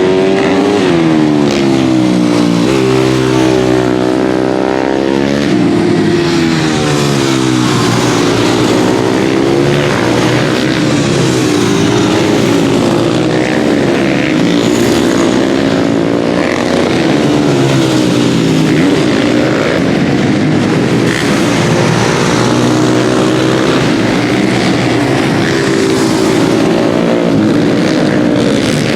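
Supermoto racing motorcycles at full race pace, their engines revving up and dropping back as they shift and brake for corners, several bikes overlapping. Loud throughout, with the engine pitch sweeping up and down again and again.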